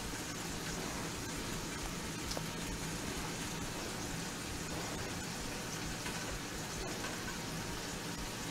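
Ham steaks sizzling in butter in a stainless steel skillet: a steady, even frying hiss.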